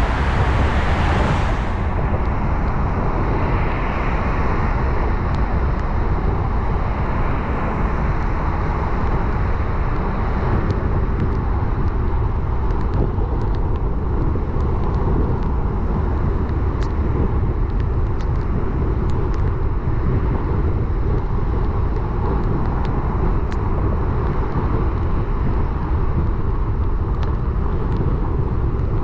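Steady rumble and hiss of a car driving on a wet city road: tyre and engine noise with faint scattered ticks. The higher hiss drops away about two seconds in.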